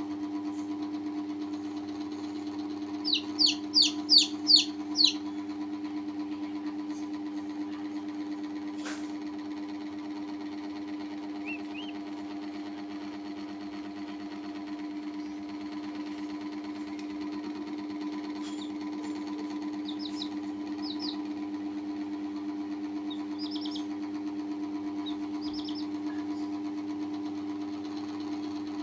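Baby poultry peeping: a run of six quick, loud, high peeps about three seconds in, then a few scattered single peeps, over a steady mechanical hum.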